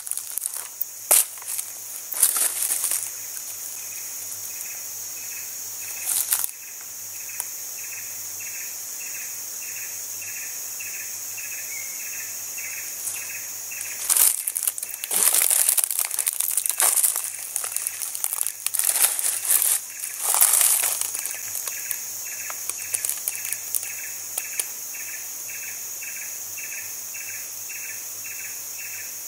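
Insects: a steady high buzz, with a second insect chirping in regular pulses about twice a second. Loud bursts of rustling and crunching leaves and undergrowth cut in near the start, about six seconds in, and on and off for several seconds in the middle.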